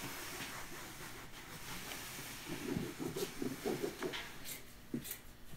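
Faint room noise with a few scattered soft knocks and clicks.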